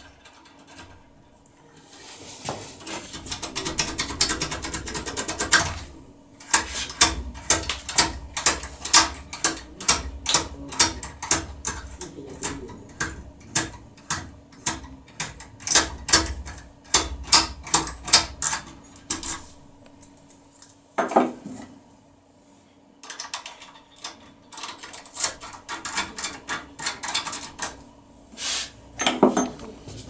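A tin-foil impression picking tool rattling and clicking in the keyway of a Securemme K22 euro cylinder lock as it is rocked back and forth. A dense metallic clatter about two seconds in gives way to sharp clicks about two or three a second, with brief pauses.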